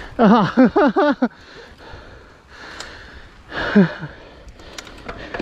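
A mountain biker's breathy vocal sounds: a quick run of four or five short voiced breaths, then about three and a half seconds in a single falling sigh, over faint riding noise.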